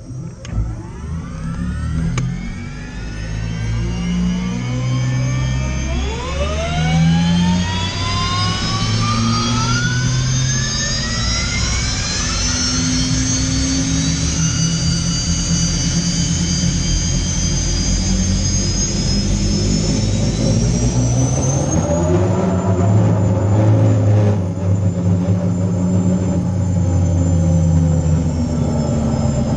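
Engine whine climbing steadily in pitch for about twenty seconds, then holding at a high steady pitch, over a continuous low rumble.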